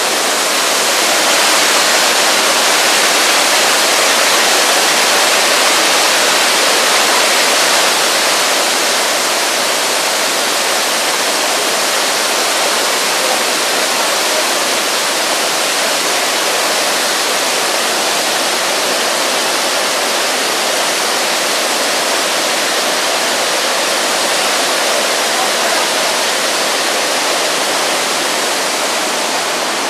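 Niagara Falls' water crashing down, a loud, steady, unbroken rushing that is slightly stronger for the first several seconds.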